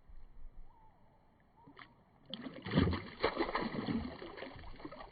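Water splashing and sloshing as a smallmouth bass is let go back into the creek, starting a couple of seconds in with the loudest splash just after.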